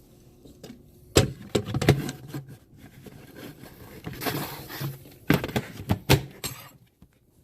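Several sharp knocks and clatters of hard objects being handled, with a rustling scrape in the middle.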